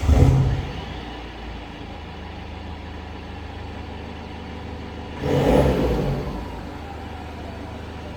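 BMW F10 520d's four-cylinder turbo-diesel, breathing through a custom dual cat-back sports exhaust, flares loudly just after starting and settles to a steady idle. About five seconds in, it is revved once briefly and falls back to idle.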